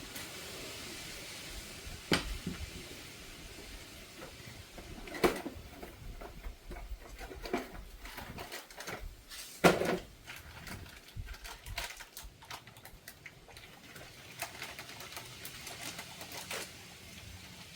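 Irregular clicks, clinks and knocks of hand tools and metal suspension parts being handled while a worn strut top is changed, with louder knocks about two, five and ten seconds in.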